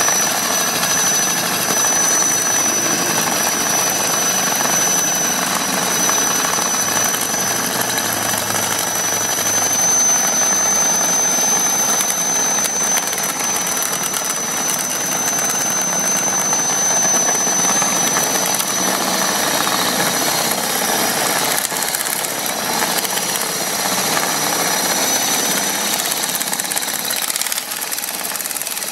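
Impact wrench with a drill chuck fitted, running under load with a continuous rattling hammer action and a steady high whine. It starts suddenly and eases a little near the end.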